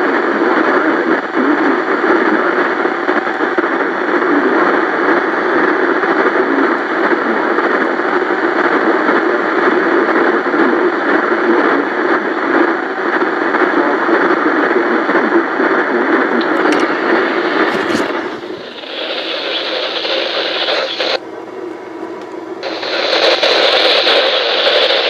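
Static hiss from a weather radio receiver with no clear signal coming through. About 18 seconds in, the hiss turns thinner and higher, drops quieter for a second or two, then comes back.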